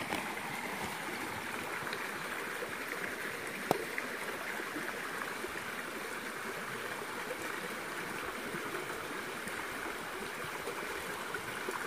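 Shallow stream running over rocks, a steady rush of water. A single sharp click about four seconds in.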